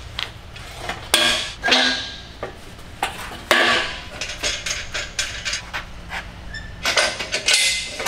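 Steel engine hoist (shop crane) being handled and set up: a string of sharp metal clanks and rattles from its steel frame, boom and hanging hook chain, several of them loud.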